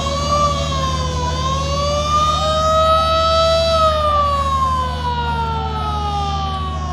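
A river passenger launch's siren-type horn sounding, its pitch rising over the first few seconds and then slowly falling, over the steady low hum of idling diesel engines.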